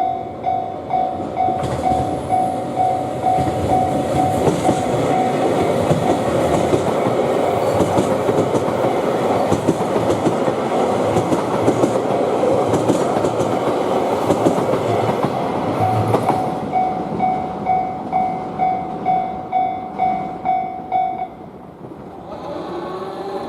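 A Japanese railway level-crossing alarm rings its repeating 'kan-kan' clang, about two strikes a second. A train passes for about fourteen seconds, its rumble and wheel clatter over the rail joints drowning the bell. The bell rings on alone after the train has gone and stops about 21 seconds in as the crossing clears.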